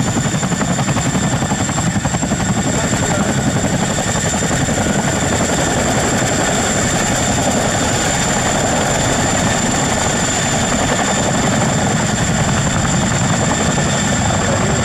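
Boeing CH-47 Chinook tandem-rotor helicopter running loud and steady, a high turbine whine held over the rotor noise.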